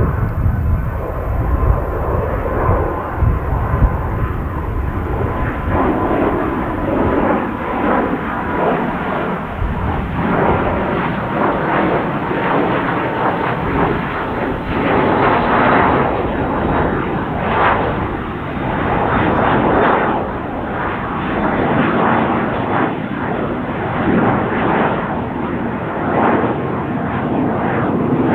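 Twin Pratt & Whitney Canada PW306 turbofans of a Cessna 680 Citation Sovereign business jet passing overhead: a steady, wavering rush of jet noise with a faint whine in the first half, fullest around the middle.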